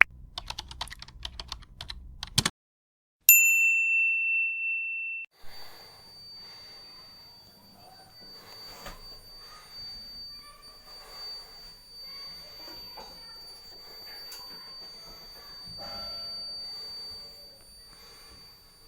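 A quick run of typing-like clicks for about two and a half seconds, then a single bell-like ding that rings out and fades over about two seconds. After that only faint clatter is heard over a thin, steady high whine.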